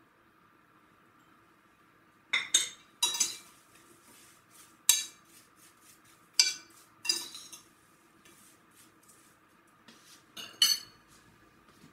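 Kitchenware clinking as a small ceramic cup and a pot of sliced apples are handled: about eight sharp clinks in irregular clusters, over a faint steady hum.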